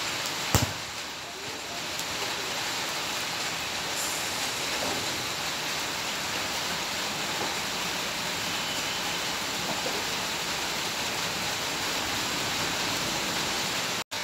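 Steady hiss of rain falling on a wet grass pitch, with one sharp click about half a second in. The sound cuts out for an instant near the end.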